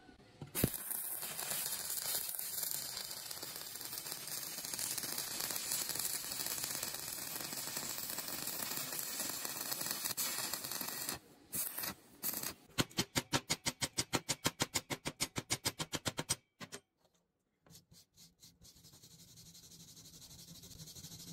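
Stick (shielded metal arc) welding on steel rebar: the arc strikes with a sharp crack about half a second in, then burns with a steady crackling hiss for about ten seconds. Past the midpoint comes a run of quick sharp pulses, about six a second, for a few seconds; after a short silence a fainter steady arc hiss returns.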